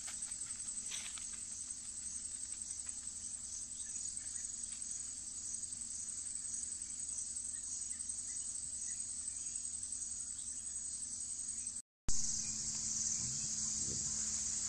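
A high-pitched insect chorus chirring steadily with a pulsing beat, broken by a brief dropout about twelve seconds in.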